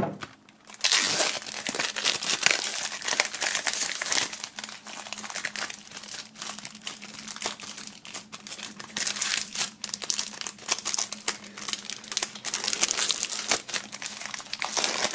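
Plastic shrink-wrap being torn open and peeled off a CD jewel case by hand, with continuous crinkling and crackling.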